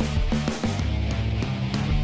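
Background rock music with electric guitar, bass and drums at a steady beat.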